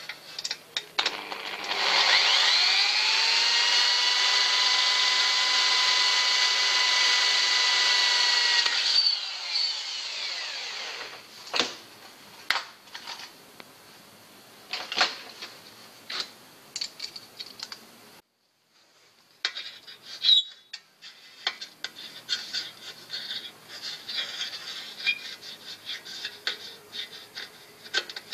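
Corded electric drill spinning up with a rising whine, then running steadily for about seven seconds while drilling into the bike's metal mudguard and rack, and stopping. Light clicks and knocks of metal parts being handled follow.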